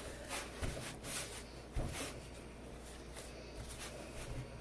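Hands kneading a soft flour-and-water dough in a bowl: faint, irregular squishing and patting, with two soft low thumps in the first two seconds as the dough is pressed into the bowl.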